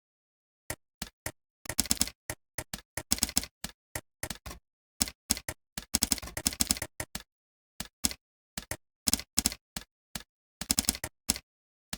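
Typing on a computer keyboard: quick runs of key clicks in bursts, broken by short pauses of dead silence.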